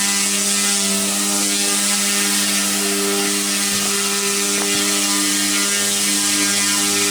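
Direct-drive dual brushless motors and single main rotor of a WLtoys F05 RC helicopter running at a steady speed: a continuous high whine and buzz with a steady hum underneath.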